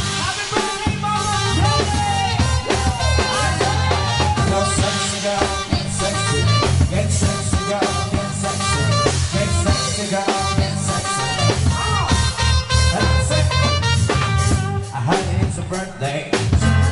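Live dance band playing loudly and continuously: a drum kit keeping a steady beat under electronic keyboard.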